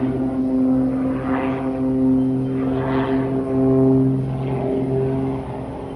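Propeller engine of a small aerobatic airplane flying overhead, a steady drone that swells roughly every second and a half as it manoeuvres.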